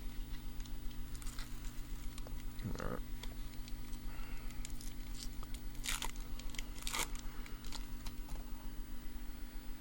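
Foil wrapper of a Topps baseball card pack being torn open and crinkled: small rustles and clicks, then two sharp rips about six and seven seconds in. A steady low hum runs underneath.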